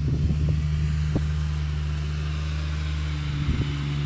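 A motor running steadily: an even low hum that holds the same pitch throughout, with a couple of faint clicks.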